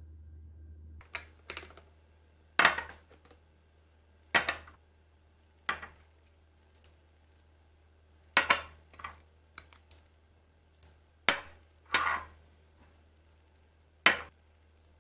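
Glass yogurt jars with plastic screw lids being handled and set down on a stone countertop: a dozen or so irregular clinks and knocks as the lids are screwed shut and the jars moved about.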